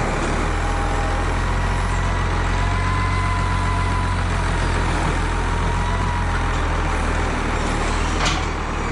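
Farm tractor engine running steadily as the loader lifts and places a hay bale on a stack, with a faint high whine and a single knock near the end.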